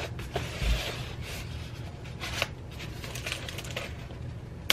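A small razor blade scraping and slicing along the seam of a styrofoam packing container, in several short scratchy strokes with light clicks and a soft thump just under a second in.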